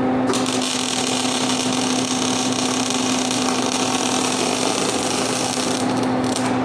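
MIG welding arc from an ESAB Migmaster 250, crackling steadily as a bead is run on a steel chain hook. It strikes about a third of a second in, stutters briefly near the end and then stops. A steady low hum runs underneath.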